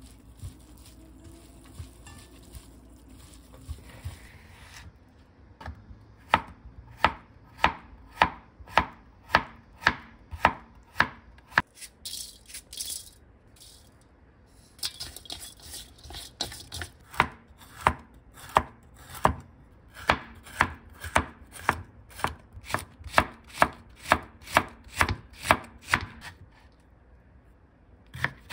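Gloved hands toss shredded chicken in a stainless steel bowl. Then a kitchen knife chops vegetables on a cutting board in steady strokes about two a second, with a short break midway.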